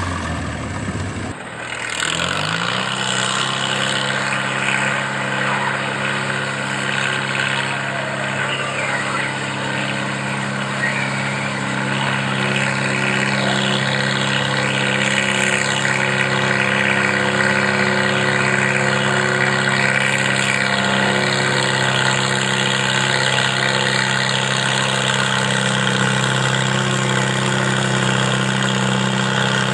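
Antique Farmall tractor engine pulling a weight transfer sled: it revs up about two seconds in, then holds one steady note under load.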